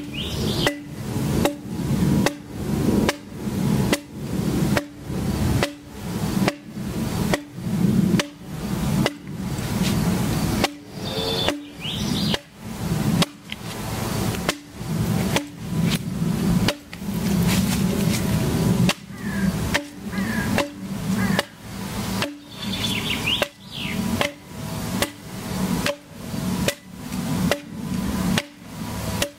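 Broad axe with a large curved blade (the 'sù') chopping into a log, squaring and flattening the trunk by hand. Sharp blows in a steady rhythm, about three every two seconds.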